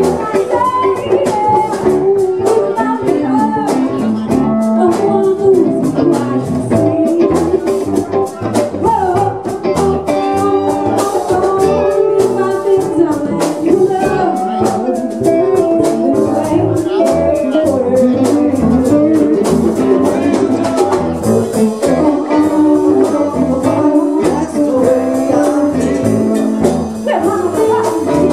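Live band playing a song: a singer over guitar, hand drum and drum kit, with a steady beat throughout.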